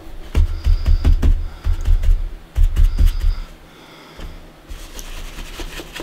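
Stencil brush pounced rapidly up and down onto paper and fabric on a tabletop: quick clusters of taps with dull thumps through the table over the first three and a half seconds, then a softer, quieter scrubbing.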